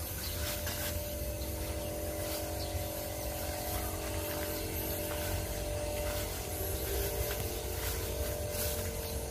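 Outdoor rumble of wind and handling noise on the camera microphone, over the steady hum of a distant motor whose pitch shifts slightly about seven seconds in.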